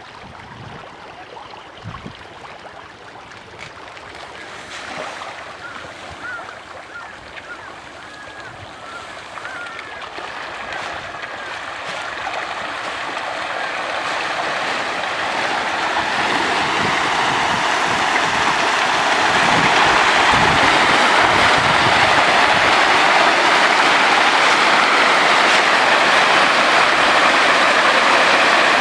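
A dense crowd of farmed catfish thrashing and splashing at the surface of a pond in a feeding frenzy as pellet feed is scattered on the water. The churning builds in loudness through the middle of the stretch, then holds at a steady, loud splashing hiss.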